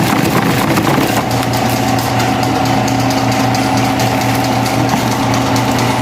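Electric household fan running: a steady motor hum under a rough, fast-fluttering rush of air and rattle, settling to an even pitch about a second in.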